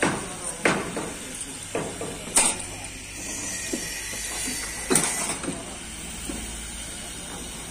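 Thin steel sheet strips clanking and clattering as they are handled and laid down on other sheets: several sharp metallic hits with a brief ring, the loudest about two and a half seconds and five seconds in, over a steady hiss.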